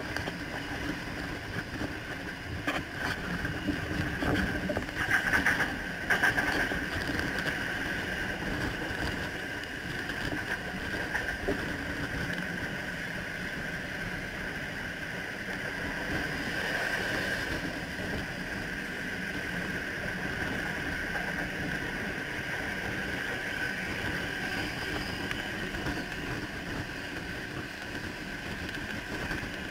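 Sydney Trains electric train running along the line at speed: a steady rolling noise of wheels on rail with a steady whine over it, and a few louder rattles around five and six seconds in.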